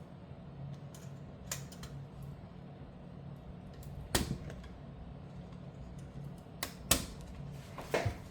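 Scattered sharp clicks and taps of hands and tools working on a graphics card's cooler and fan connectors, the loudest about four and seven seconds in, over a low steady hum.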